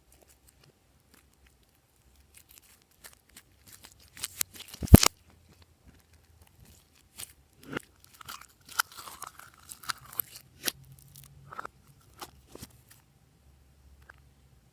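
Slime being handled and mixed: a string of sharp clicks and crunchy crackles, with one loud snap about five seconds in and a busy run of crackling in the second half.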